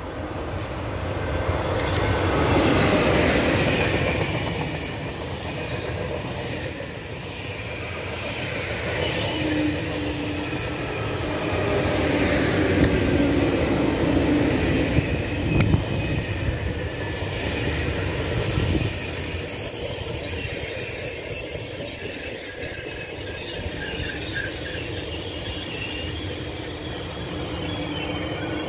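SNCF TGV Duplex double-deck high-speed train passing slowly close by. Its running rumble builds over the first few seconds and then holds steady, with a high-pitched squeal that comes and goes.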